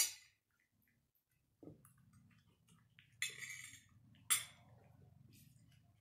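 Cutlery clinking and scraping against a plate as food is cut up and moved around: a sharp clink at the start, a short scrape a little after three seconds, and another sharp clink about a second later.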